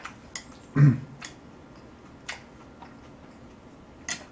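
Metal chopsticks clicking and tapping against a plate and a cup while someone eats, with about half a dozen separate sharp taps, one of them near the end. The loudest sound is a short, low mouth sound about a second in.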